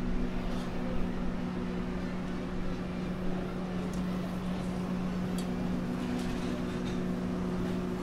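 A steady machine hum, like a motor running, over an even rush of background noise, with a few faint clicks.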